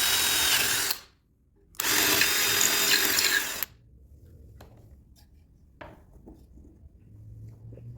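An electric power tool runs with a high whine and cuts off about a second in. It starts again a moment later and stops after under two seconds. A few faint clicks and knocks follow.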